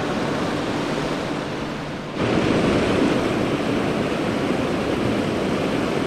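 Mountain river water rushing over rocks in a steady roar, which jumps suddenly louder about two seconds in.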